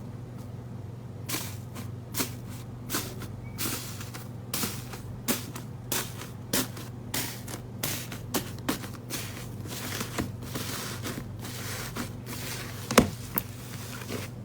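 Slime being worked by hand, giving a series of short sharp pops and crackles about one or two a second, with one louder pop near the end. A steady low hum runs underneath.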